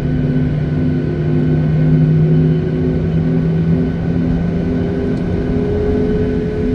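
Airliner jet engines heard from inside the passenger cabin: a steady low rumble with a hum that pulses about twice a second. A higher tone climbs slightly in pitch from about four seconds in, as the engines spool up.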